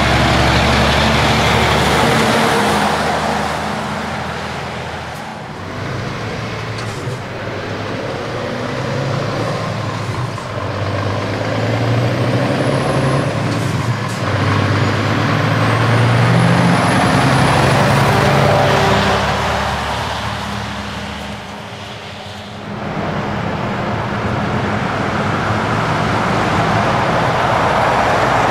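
Heavy trucks passing one after another on the road, each one's diesel engine and tyre noise swelling as it comes by and fading as it goes. It is loud at the start as a MAN semi goes past, loudest in the middle as a New Generation Scania semi passes, and rising again near the end as a Volvo FH approaches.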